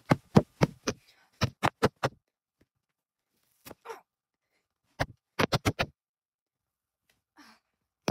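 A rapid series of thuds, about four a second for two seconds. After a few fainter knocks comes a quick run of five about five seconds in.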